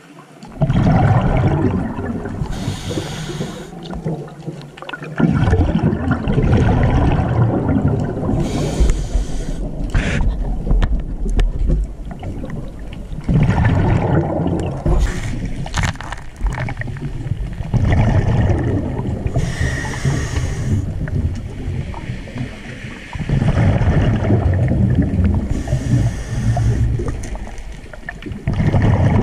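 A scuba diver breathing through a regulator underwater, about every five to six seconds: short hissing breaths alternate with long low rumbles of exhaled bubbles.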